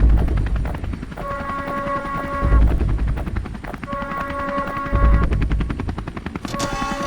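Helicopter rotor chopping steadily, a sound effect layered with a held steady tone of about a second that repeats roughly every two and a half seconds, alternating with deep thuds.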